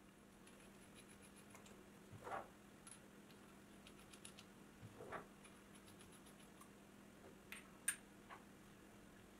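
Faint, scattered clicks and light scrapes of small steel parts being handled: steel tommy bars pushed into the holes of a steel die holder body, with one sharper metal click near the end.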